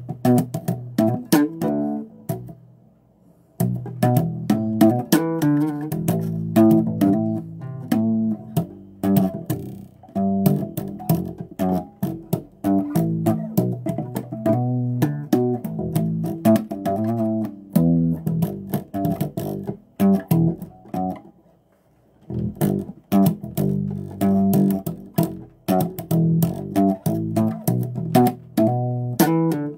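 Electric bass guitar played solo with the fingers: a run of plucked notes, each with a sharp, percussive string attack. It stops briefly twice, about three seconds in and again about twenty-one seconds in.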